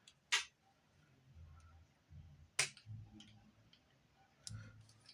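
Two sharp metal clicks about two seconds apart, among fainter ticks and handling noise, as fine silver design wire is bent and handled with small hand tools on a jewelry bench.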